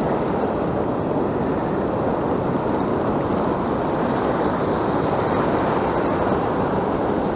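Steady, even rush of ocean surf breaking close by, mixed with wind on the microphone.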